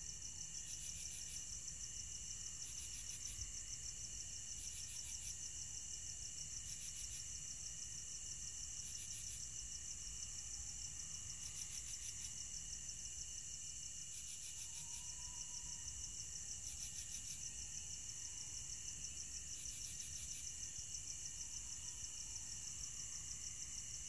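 Night chorus of crickets: a steady, high, fast-pulsing trill, with a higher chirp in short bursts about every two seconds.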